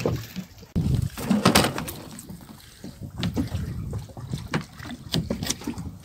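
Background noise aboard a fishing boat at sea: an uneven wash of water and wind with a few scattered short knocks and clicks.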